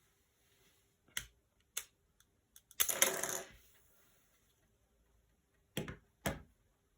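Hard plastic Lego parts of a home-built Lego revolver clicking as it is worked: two sharp clicks, a short rattling clatter about three seconds in, the loudest part, then two more sharp clicks near the end.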